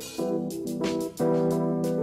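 Background music: held keyboard chords over a steady beat.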